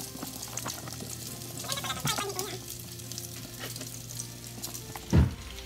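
Patties frying in hot oil in a skillet, crackling and spattering. A single loud thump about five seconds in.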